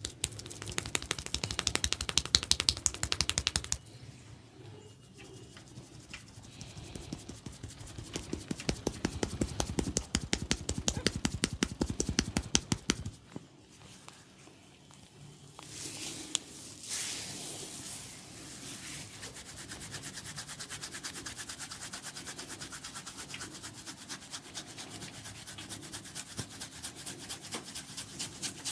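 A barber's hands tapping rapidly on a head during a head massage, many quick slaps a second in two long runs. This gives way about halfway through to a softer, steady rubbing of hands over oiled hair and scalp.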